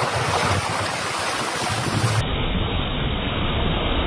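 Car tyre ploughing through floodwater on a road, throwing up spray in a steady rushing splash, with wind rumbling on the microphone.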